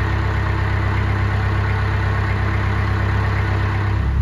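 Narrowboat's diesel engine running steadily under way; its note changes and grows louder near the end.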